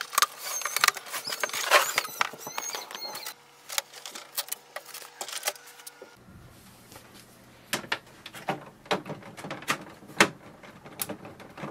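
Scissors cutting into a cardboard box, with rustling, scraping and crackling of cardboard and packing material. Then scattered clicks and knocks of the unpacked printer being handled.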